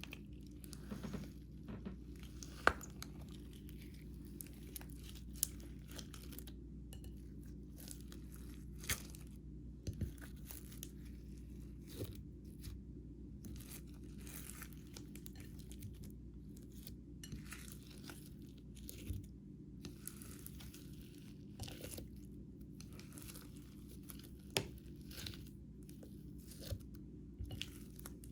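Slime being kneaded and stretched by hand, giving irregular sticky pops, clicks and crackles over a low steady hum.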